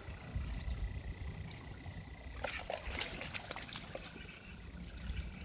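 Swamp-edge ambience: a steady high-pitched insect drone over low wind rumble on the microphone, with a brief cluster of sharp clicks about two and a half seconds in.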